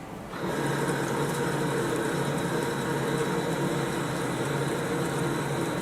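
Takamaz XT-8MY CNC lathe machining a shaft: a steady machine sound with several held tones starts about half a second in and cuts off just before the end.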